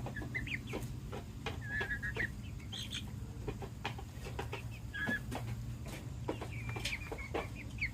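Silkie chickens clucking softly with short high chirps and trills scattered throughout, over a steady low hum.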